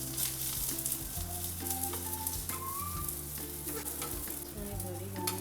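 Rice paper dumplings sizzling as they pan-fry in oil, a steady crackling hiss, over background music with a bass line and a melody.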